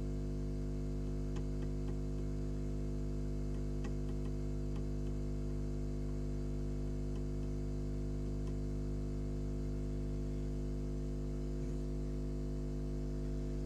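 Steady electrical hum from bench equipment, with a few faint ticks in the first five seconds.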